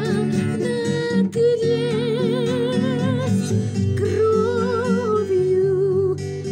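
Music: a Christian song with acoustic guitar accompaniment under a high melody line held in long notes with vibrato.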